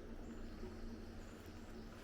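Quiet countryside ambience: faint high-pitched chirping over a steady low hum.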